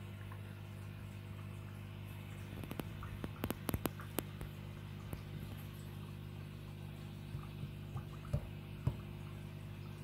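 Steady hum of the aquarium's pump running, with water dripping and splashing on top: a quick cluster of sharp drips about three seconds in and a few more near the end.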